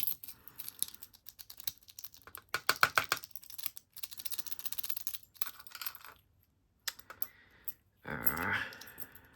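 Quick small clicks, taps and scraping as a tool works stuck pins and springs out of a cheap lock's plug during disassembly, with a burst of louder clicks about three seconds in and a louder scrape near the end.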